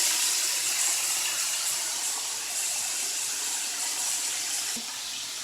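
Flour-coated chicken wings deep-frying in hot oil, a steady sizzle that slowly gets quieter.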